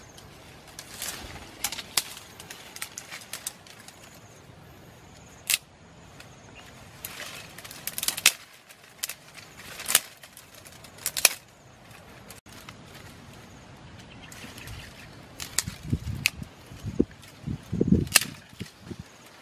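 Dry twigs and thin sticks snapping and crackling as they are broken and handled by hand, with single sharp cracks every second or two. Near the end comes a denser run of heavier snaps and knocks as a longer stick is bent and worked.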